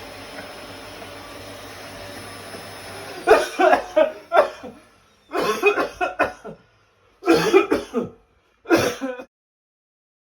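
A person coughing and clearing their throat in four short fits, a second or so apart, after a few seconds of steady background hiss; it goes silent near the end.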